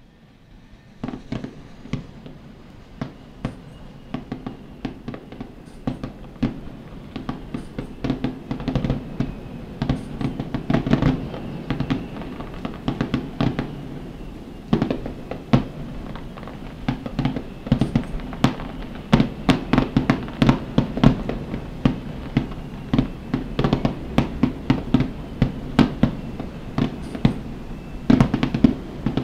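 Rapid-fire starmine fireworks barrage: aerial shells bursting one after another in quick succession, sharp bangs over a continuous rumble. The bursts start about a second in and grow denser and louder toward the end.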